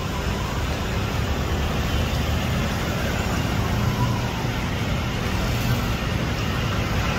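Steady road-traffic noise: a continuous low rumble of city vehicles.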